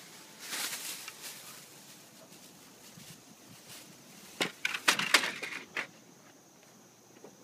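Pigeons' wings flapping: a brief rush of wingbeats, then about four and a half seconds in a quick burst of sharp wing claps lasting about a second and a half, as young homing pigeons take off or wheel around their loft.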